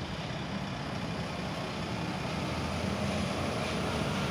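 Diesel engine of a Mercedes-Benz intercity coach running as the bus pulls away. It grows gradually louder as the coach comes closer.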